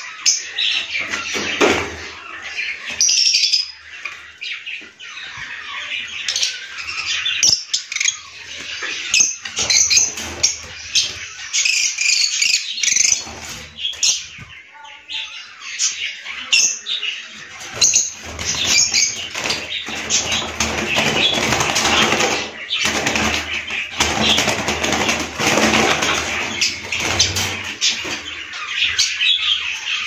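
A room of caged cockatiels and peach-faced lovebirds chirping and calling constantly, with repeated bursts of wings flapping.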